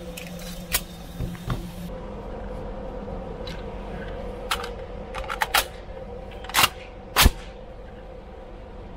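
Gunshots on a shooting range: a scatter of sharp cracks at irregular intervals, quieter than a close shot. There is a quick cluster of several near the middle, and the two loudest come near the end, a little over half a second apart.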